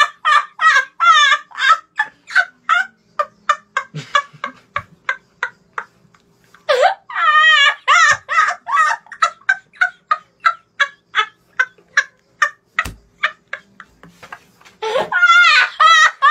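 Boys laughing helplessly: a fast run of short, high-pitched, cackling laughs, several a second, with louder wavering peals about seven seconds in and again near the end.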